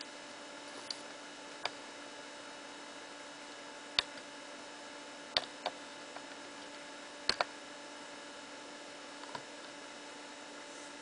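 Steady electrical hum of a running Apple Macintosh Performa 6300CD, broken by about seven short sharp clicks at irregular intervals.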